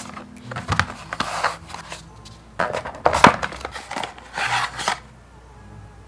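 Cardboard packaging being handled and unpacked: a string of taps, knocks and short rustles as the box is opened and its contents are lifted out. It goes quieter near the end.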